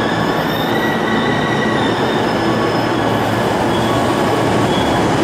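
A 10-car Odakyu Line express train running into the platform, its steady rumble carrying a thin, high squeal.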